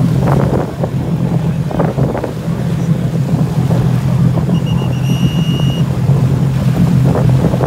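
Racing jet skis idling in the water, a steady low engine drone with their jet wash churning, and wind on the microphone. About five seconds in, a few short high beeps are followed by one longer beep.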